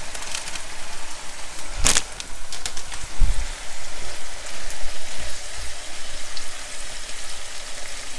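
Frying pan of lamb in thick sauce sizzling and bubbling steadily as frozen mixed vegetables go in and a spatula stirs them through, with a sharp knock about two seconds in and a dull thump about a second later.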